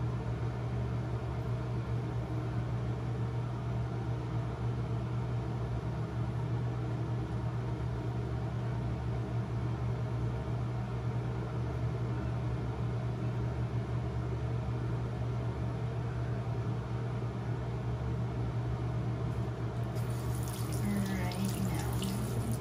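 A steady low hum throughout. Near the end, water runs and splashes at a bathroom sink as hands are rinsed.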